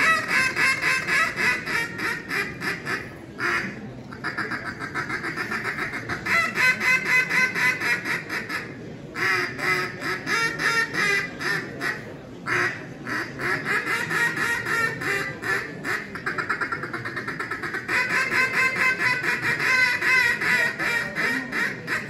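Hand-blown mallard duck call sounding long runs of rapid, rhythmic quacks, broken by a few short pauses.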